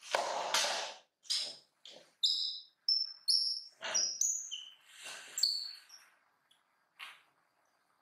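Young macaques giving short high-pitched chirping squeaks, several in quick succession in the middle, among short noisy rustling scuffs in the first second and again later.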